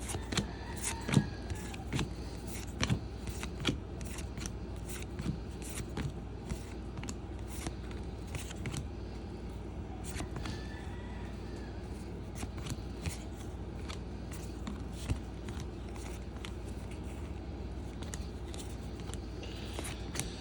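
Baseball trading cards being flipped through by hand, a run of short, irregular clicks and slides as card after card is moved through the stack.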